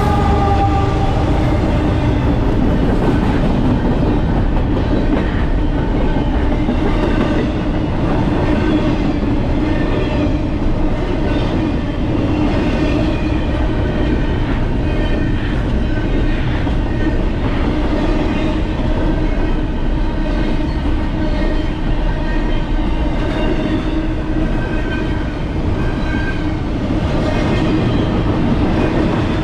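Steady, loud rumble of a moving vehicle, with a low steady hum running under it.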